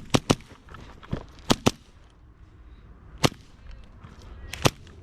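Airsoft guns firing single shots, about seven sharp cracks at irregular intervals, two in quick succession at the start and others spread through.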